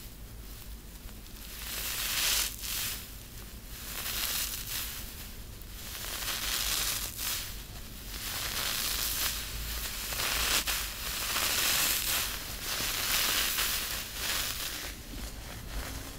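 Hands crushing a crispy soap ball wrapped in pink metallic tinsel: dense crunching and crinkling in about five waves, each a second or two long, starting about a second and a half in.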